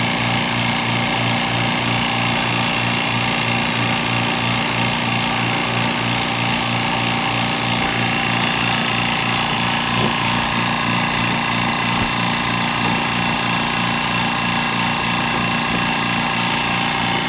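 A motor-driven machine running steadily with a fast, regular pulsing beat under a constant whine.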